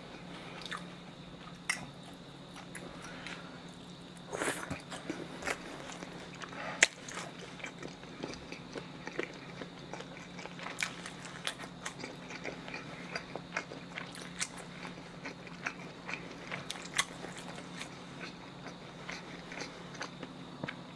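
Close-miked chewing of a mouthful of pressed pork slices (pyeonyuk), with irregular wet mouth clicks and smacks; the loudest bites come around four to five seconds in and again near seven seconds. A faint steady low hum runs underneath.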